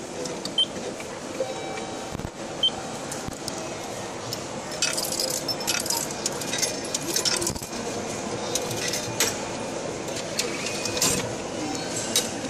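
Coins clinking into a Japanese subway ticket machine's coin slot, a run of sharp clicks and clinks starting about five seconds in, then more clicks from the machine near the end as the ticket is issued, over a steady background hum.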